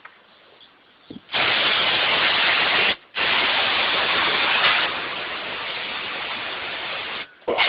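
Aerosol can of brake parts cleaner spraying onto a disc brake assembly in two hissing bursts. A short one starts about a second in, then after a brief break comes a longer one of about four seconds that grows a little quieter halfway through.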